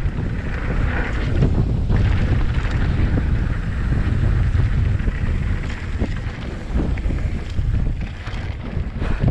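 Wind rushing over an action camera's microphone during a fast downhill mountain-bike run on a dirt trail, with steady rumble from the tyres and frame and scattered knocks and rattles from the bike over bumps. It eases somewhat near the end as the bike slows.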